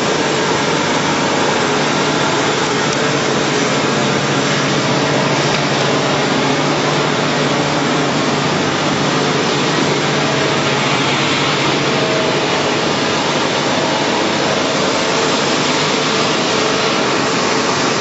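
PP/PE plastic film washing and recycling line running, with paddles churning shredded film flakes through the floating washing tank: a loud, steady machine noise with a constant low hum.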